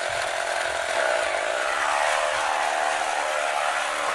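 Estrela Lig Car battery-powered toy car running in gear: its built-in engine-sound effect and small drive motor going steadily as it moves.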